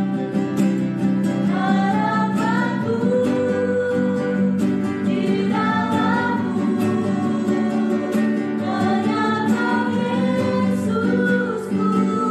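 A small group of voices singing a worship song together in a few parts, over strummed acoustic guitars.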